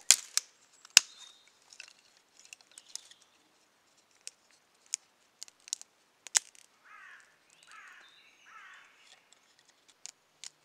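Dry dead twigs snapping with sharp cracks, two loud ones in the first second, then a scatter of lighter cracks and clicks as sticks are broken and handled. Brief scraping rustles of the sticks come later.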